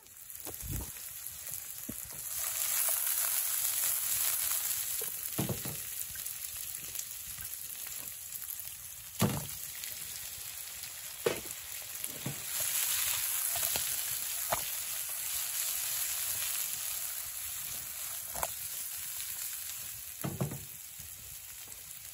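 Food frying in a skillet: a steady sizzle that swells louder twice, with a handful of sharp pops and spits.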